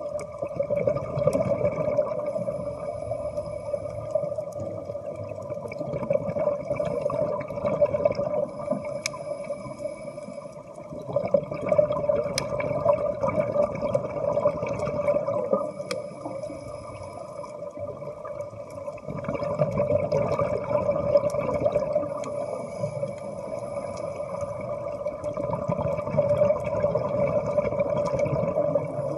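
Underwater sound of a scuba diver's breathing through a regulator: surges of exhaled bubbles every several seconds over a steady underwater hum.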